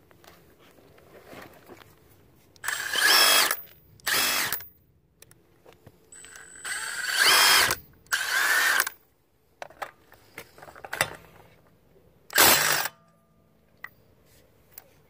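Milwaukee M18 Fuel impact driver hammering in five loud bursts of up to about a second and a half each, with small clicks between them. It is breaking loose and running off a lug nut torqued to 100 ft-lbs, through a long socket extension.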